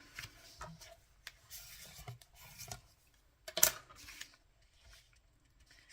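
Cardstock being folded up against a ruler and bent back the other way, with paper scraping and rustling. One sharp, loud click comes a little past halfway.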